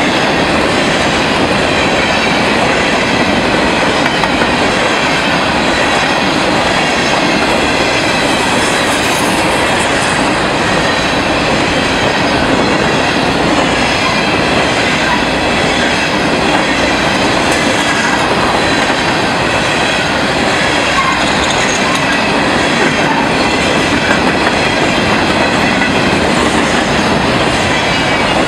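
Freight train of coal hopper cars rolling past, a steady loud rush of steel wheels on the rails.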